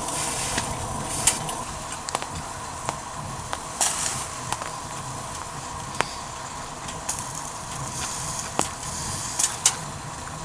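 Food frying in a pan: a steady hiss with scattered sharp clicks and taps and short spurts of sizzle.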